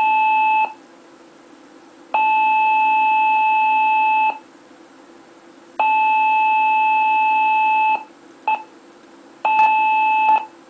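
Old Brinks home security keypad beeping for a medical emergency alert, with no siren: a steady mid-pitched tone in long beeps of about two seconds each, with gaps of about a second and a half, then a short blip and a shorter beep near the end.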